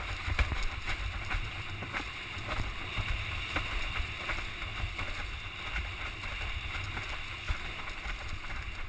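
Wind rumbling on the camera microphone over a steady water hiss as an iSonic windsurf board sails through chop, with frequent irregular slaps of water against the hull.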